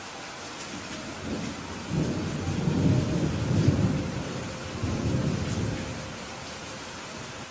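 Steady rain falling with a deep roll of thunder that builds about a second in, peaks in the middle, rumbles once more and fades out near the end.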